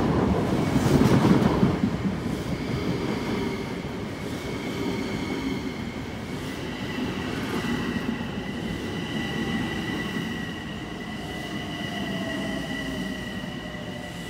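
Long Island Rail Road electric multiple-unit train moving past close by along the platform. A heavy rumble of wheels on rail is loudest in the first two seconds. From about halfway a steady high squeal builds, and near the end a lower whine falls in pitch as the train slows.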